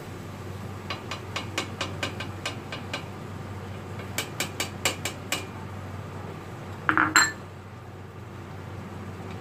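A spoon tapping against a small glass container to knock fish paste out into a cooking pot: quick clinks at about four a second in two runs, then a louder clatter about seven seconds in.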